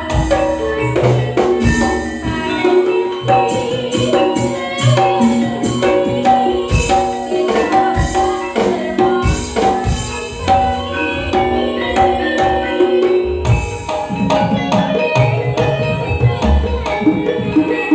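Campursari music: an instrumental passage of quick, repeated melodic notes from tuned percussion over a steady drum rhythm.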